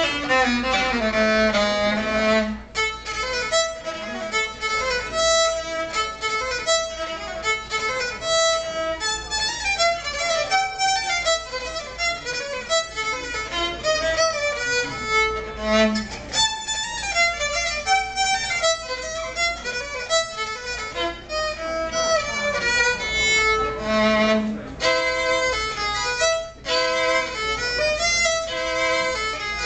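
Violin playing a set of variations: quick runs of notes, broken by a few short pauses between phrases.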